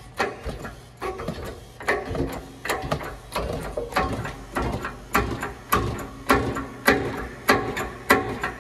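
Hand-pumped hydraulic shop press being pumped, about one and a half strokes a second, each stroke a short mechanical clank, as the ram presses a new control arm bushing into its bore.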